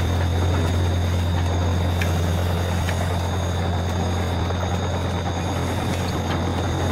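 Electric gear motors of a toy remote-control tracked excavator running as it crawls forward: a steady low hum with a thin, high, constant whine over it.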